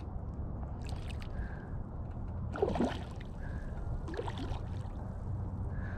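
Choppy lake water lapping and sloshing close to the microphone, over a steady low wind rumble, with two louder sloshes about three and four seconds in.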